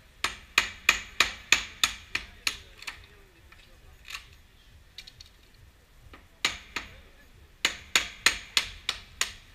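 Hammer blows on the wooden frame of a burglary-resistant window, forcing the frame with wedges and a crowbar. A quick run of about nine sharp strikes, about three a second, then a lull with a few scattered knocks, then a second run of strikes near the end.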